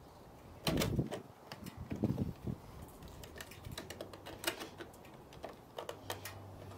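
Irregular light clicks and taps as a chrome trim ring and LED turn-signal light are handled and worked into their housing by hand, with a couple of louder knocks early on.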